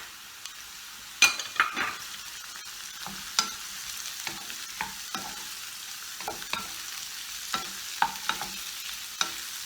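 Onion, carrots and peas sizzling in olive oil in a pan, with a steady hiss. A spoon stirs them, scraping and knocking against the pan about a dozen times at irregular moments, some knocks ringing briefly.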